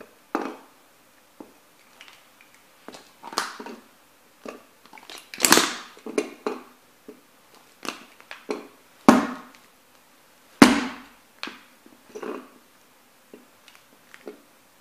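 Nike Air Max 90 sneakers stomping on a small plastic-and-metal toy truck, with irregular cracks, crunches and clicks as plastic shards and the metal cab are crushed and scraped against a board. Three heavier crunches stand out in the middle.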